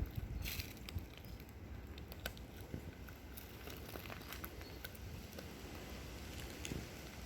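Footsteps on a forest floor, with scattered short crackles and snaps.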